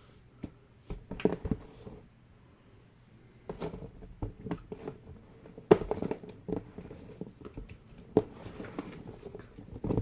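Fidget toys being rummaged through and set down: irregular clicks, knocks and rustles, with a short lull about two seconds in.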